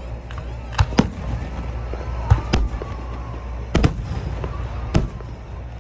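Aerial fireworks shells bursting: about seven sharp bangs, some coming in quick pairs, over a steady low rumble.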